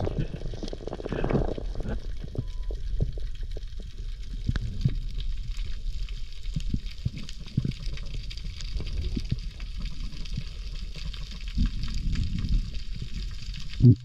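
Underwater ambience heard by a submerged camera over a coral reef: a steady low rumble of moving water with many scattered clicks and crackles.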